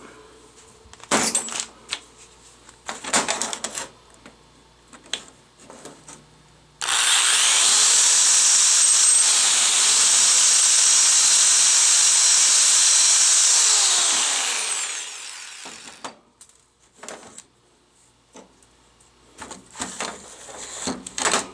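Power drill drilling out a rivet holding a door handle in a car door. A few knocks and clicks come first, then about seven seconds in the drill runs steadily for about seven seconds, its pitch dipping briefly partway through as it bites, and winds down.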